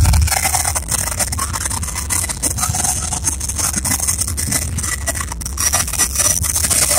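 Jet engine of a jet-powered semi truck running with its afterburner lit, flames blasting out behind the standing truck: a loud, steady rushing noise full of crackle. A deeper, louder burst at the very start drops away within the first half second.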